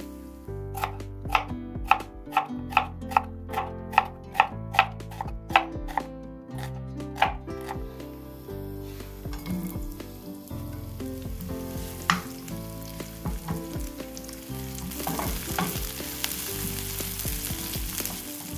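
A knife chopping on a cutting board in a steady rhythm of about two to three strikes a second for the first seven seconds. Then sliced onions sizzle in hot frying oil in a pan, louder near the end as they are stirred with a wooden spatula.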